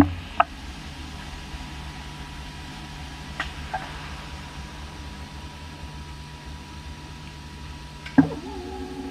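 CNC lathe running: a steady machine hum with a low tone and a fainter higher tone, broken by a few sharp clicks. After a click near the end the tones change.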